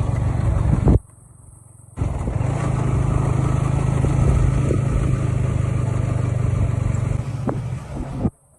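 Motorcycle engine running steadily with road and wind noise. Abrupt cuts drop it out for about a second near the start and again near the end.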